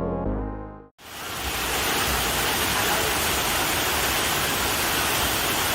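Background music fades out within the first second, then the steady, even rush of a waterfall's falling water.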